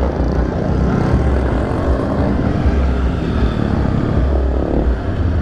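Honda XRE300's single-cylinder engine running steadily as the bike rides slowly, with an uneven low rumble underneath.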